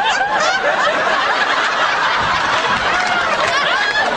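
Several people laughing together, their laughs overlapping, after an actress fluffs her line on set.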